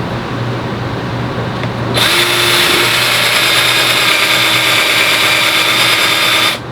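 Electric drill with a Forstner bit boring a shallow recess into a half-inch PVC sheet. It starts about two seconds in, runs steadily for about four and a half seconds, then stops abruptly.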